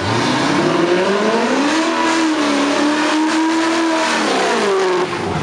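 C4 Chevrolet Corvette's V8 revved hard during a burnout, with the rear tyre spinning and smoking. The revs climb over about two seconds and hold high, then drop and cut off shortly before the end.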